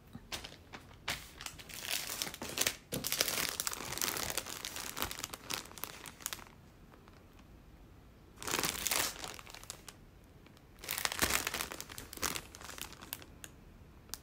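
Clear plastic packaging crinkling as it is handled: a long stretch of rustling and crackling over the first half, then two shorter bouts.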